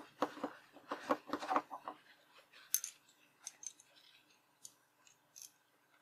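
Handling noise of a freshly hobbed steel bolt being wiped with a paper towel. A quick run of rubbing strokes comes first, then scattered light metallic clicks with faint paper rustling.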